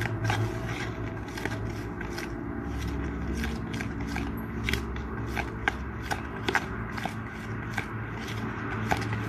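A spoon stirring icing sugar and a little water in a plastic bowl, with irregular scraping and clicking against the bowl about two or three times a second.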